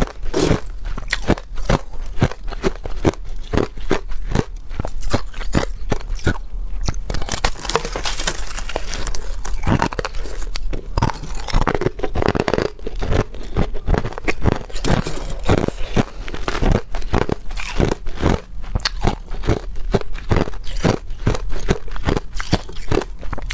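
Frozen crushed ice being bitten and chewed: a steady run of sharp, crisp crunches, several a second, as the ice breaks up in the mouth.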